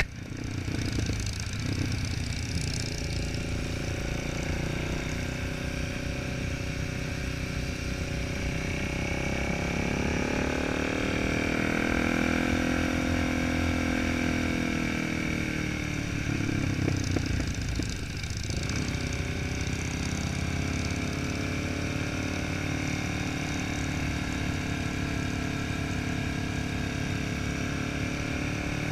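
Motorcycle engine heard from the bike the camera rides on, running steadily under way with wind noise. Its note rises and falls with the throttle and eases off briefly about two-thirds of the way in before picking up again.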